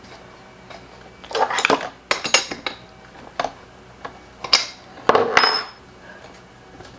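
Metal tools and small parts clinking and clattering on a workbench in several short bursts.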